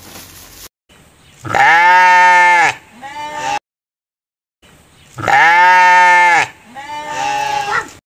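Goat bleating: a long bleat followed by a shorter, quieter one, and then the same pair again after about a second of silence.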